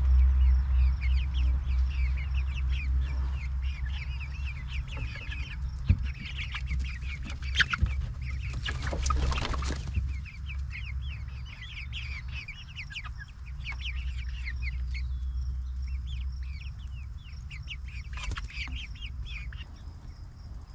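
Backyard chickens clucking and calling in quick, high chatter over a steady low rumble, with a short rustling burst about nine seconds in.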